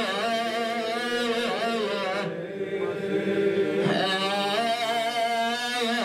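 A man chanting a line of an Arabic elegy in one long, drawn-out melody whose pitch wavers and bends, held softer on a lower note about halfway through.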